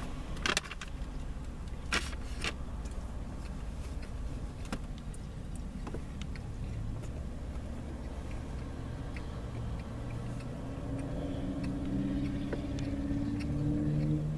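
Low, steady car rumble heard from inside the cabin. A few sharp clicks come about half a second and two seconds in, and a low drone grows louder near the end.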